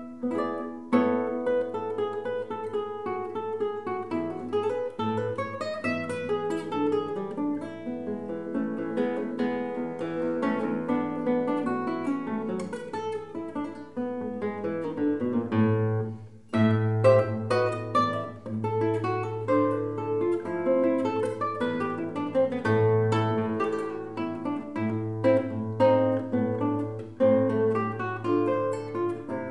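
Nylon-string classical guitar played solo and fingerpicked: a steady stream of quick notes over held bass notes, with a brief break about halfway through.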